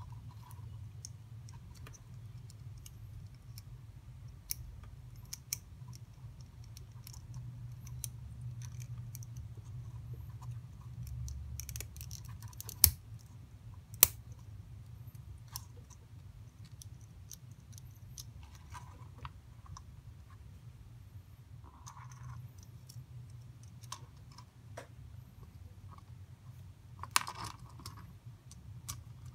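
Small plastic kit parts being handled and fitted together: scattered light clicks, with two sharp snaps about a second apart near the middle and a short clatter near the end.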